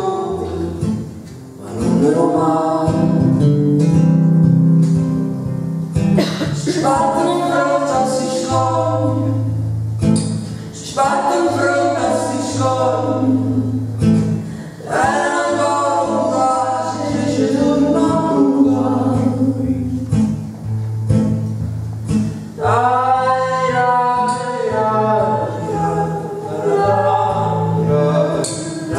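A woman singing a slow song with acoustic guitar accompaniment. Her voice comes in phrases with short breaks between them, over low held guitar bass notes.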